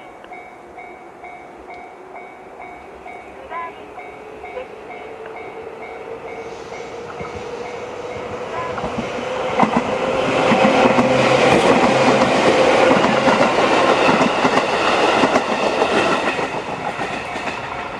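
A JR 211 series electric train passes over a level crossing while the crossing's electronic alarm bell, the JR standard tone, keeps ringing in a steady repeating pattern. The train's running noise builds from about six seconds in, with the wheels clattering over the crossing, is loudest in the second half and eases off near the end.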